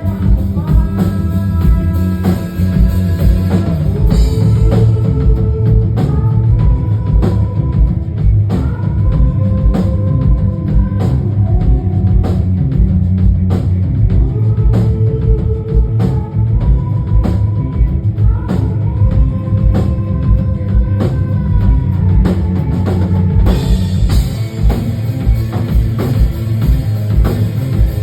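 Live rock band playing an instrumental passage: a steady drum kit beat with bass under a repeating melodic lead line, with no vocals.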